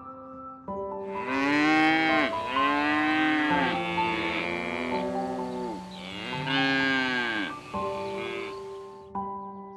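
Dairy cows mooing: several long moos one after another, each rising and then falling in pitch, starting about a second in and ending near the end. Piano music plays underneath.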